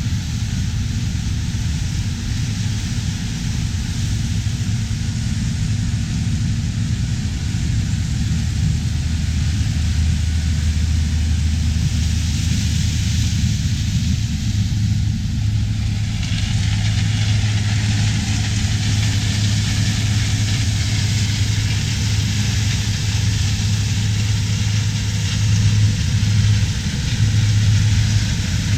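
Diesel engines of corn harvest machinery running steadily: a low drone that deepens for a few seconds about a third of the way in and then rises again, with a hiss above it that grows louder about halfway through.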